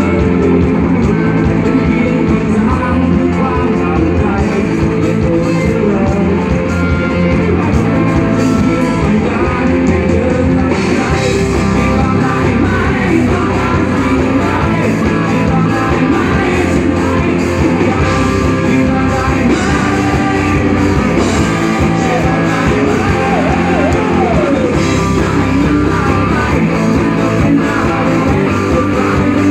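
Rock band playing live and loud: electric guitars and drums, with a singer's voice.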